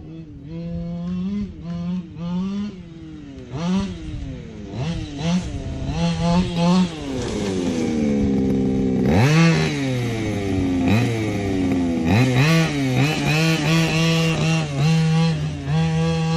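Losi DBXL 1/5-scale RC buggy's small two-stroke gasoline engine breathing through a Losi tuned pipe, revved up and down in short repeated blips. About nine seconds in it climbs to high revs and falls back, then holds a steadier buzzing pitch near the end.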